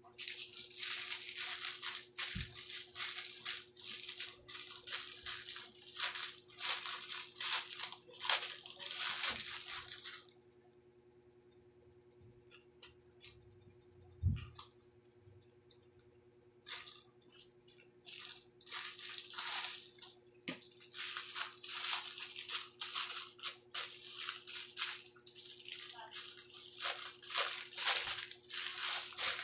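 Clear plastic packaging crinkling and rustling as it is handled, in two long stretches with a pause of several seconds between them, broken by a single low thump. A faint steady hum underneath.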